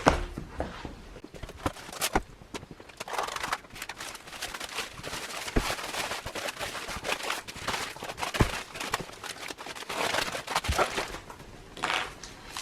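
Irregular knocks, clicks and rustling of parts being handled and set down on a table.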